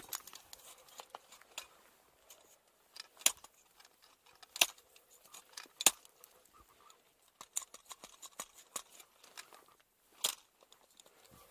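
Ice-climbing hardware clinking and jingling, with three sharp strikes into ice about a second and a half apart a few seconds in and one more near the end.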